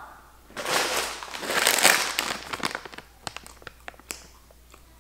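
Lay's Kettle Cooked potato chip bag crinkling as it is picked up and handled: dense crinkling for about two seconds, then a few scattered crackles.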